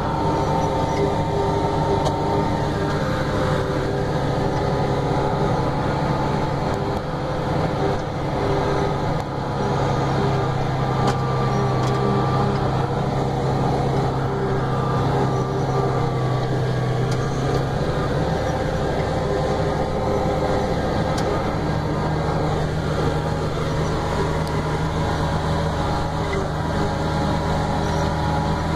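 Claas Jaguar 870 self-propelled forage harvester running under load while picking up and chopping a hay windrow: a steady engine and cutterhead drone heard from the cab, its pitch sagging slightly for several seconds midway.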